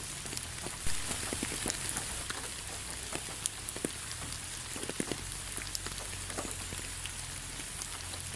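Steady rain: an even hiss dotted with many separate drops ticking close by, one a little louder about a second in.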